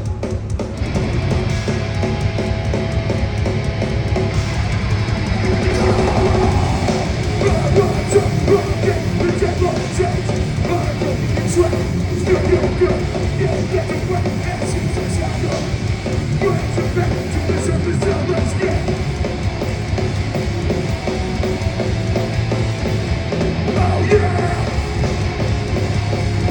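Hardcore punk band playing live, heard through a phone-type recording: loud distorted guitars, bass and pounding drums in an instrumental section, with no vocals.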